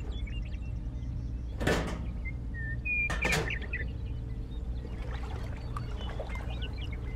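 Small handmade model parts set down on sand and handled, giving two light knocks, with birds chirping in the background over a steady low hum.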